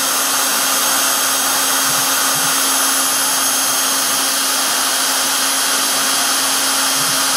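Hobby CNC engraving machine running steadily, its high-speed spindle motor giving a continuous whine over an even hiss.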